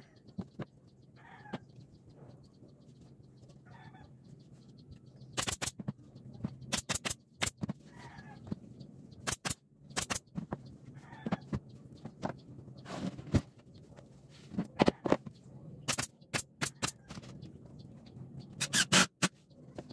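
Sharp knocks of nails being driven into a plywood speaker cabinet, coming in quick pairs and small clusters from about five seconds in. Chickens cluck faintly in the background.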